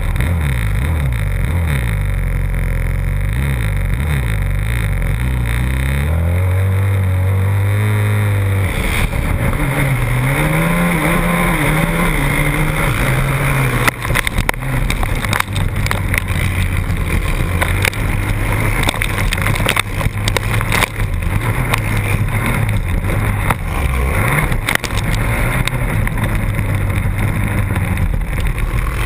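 A race quad's engine heard from on board, first blipped up and down at the start gate and then held at steady high revs. About nine seconds in it launches and climbs through the gears in repeated rising sweeps, with dirt and stones clattering against the machine as it runs in the pack.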